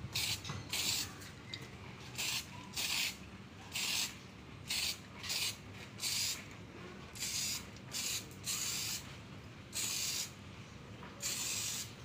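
Diton clear-coat aerosol spray can hissing in short repeated bursts, roughly one to two a second, as it is sprayed in thin passes so the lacquer does not run.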